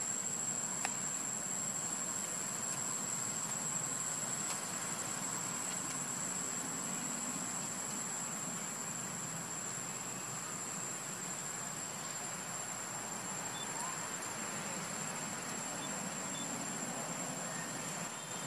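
Steady, high-pitched drone of insects, one unbroken tone, over a constant background hiss, with a single faint click about a second in.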